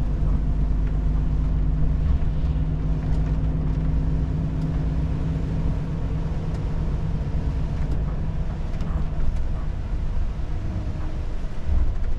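Volvo FH 500 truck's 13-litre six-cylinder diesel engine running under way, heard from inside the cab as a steady low drone. The steady engine note eases off about nine seconds in.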